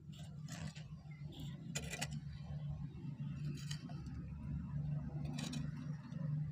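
Steel shovel blade scraping into and turning a heap of gritty potting-soil mix, a few short scrapes about every second and a half to two, over a steady low hum.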